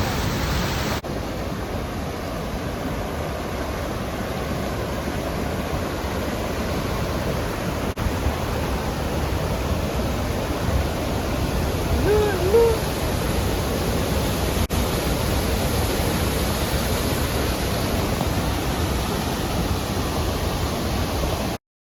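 Steady rushing roar of a waterfall and river, Crescent Falls on the Bighorn River. A short pitched call rises and falls about halfway through, and the sound cuts off suddenly near the end.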